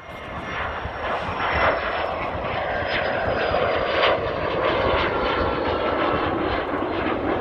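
Small jet's engines at takeoff power as it climbs out: a steady loud roar, rising over the first second or so, with a thin high whine that slowly falls in pitch.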